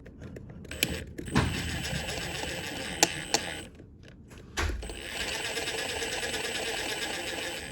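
Electric drill running with a small bit, boring a pilot hole into the head of a stripped bolt. It runs in two spells of about three seconds, stopping briefly about halfway, with a few sharp clicks around the start of each spell.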